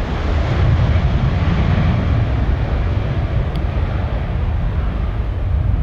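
Jet airliner engines running: a loud, steady rumble.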